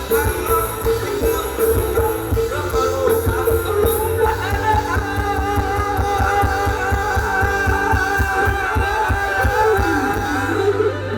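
Rock band music with singing over a steady drum beat, with a long held melody line through the middle.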